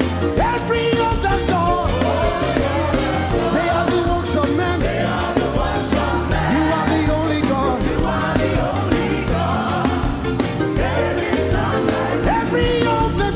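Gospel praise and worship music: voices singing a melody over a band, loud and steady.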